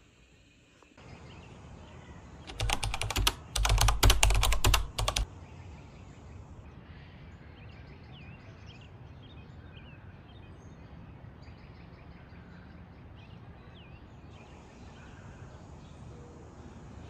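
A burst of rapid, loud clicking and rattling lasting a couple of seconds, then a steady outdoor hiss with small birds chirping.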